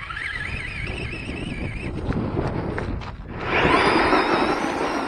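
Electric RC truck running, its motor whining at a pitch that wavers up and down, over a low rumble. About three and a half seconds in, a loud rushing noise lasts about a second and a half.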